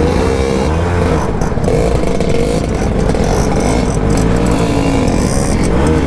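Suzuki Max 100 single-cylinder two-stroke motorcycle engine running at low trail speed, its revs rising and falling repeatedly with the throttle.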